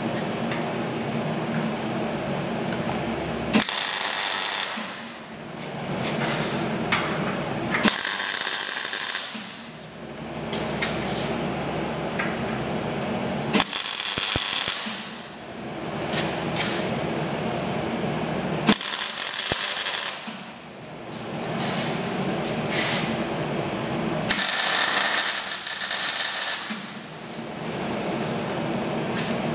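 MIG welder arc crackling and hissing as steel tube is stitch-welded in runs, stopping and restarting with short pauses. The loudest moments are five sharp bursts that each last a second or two.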